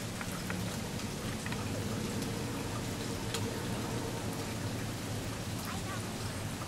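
Steady rain falling on wet pavement, with scattered sharp taps of single drops.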